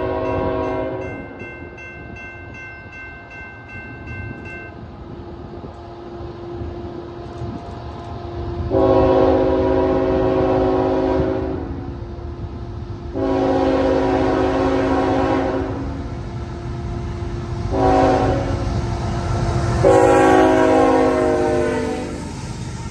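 Locomotive multi-chime air horn sounding the grade-crossing signal of long, long, short, long blasts over the steady rumble of the train, the last blast dropping in pitch near the end. It starts just after the tail of an earlier blast dies away about a second in.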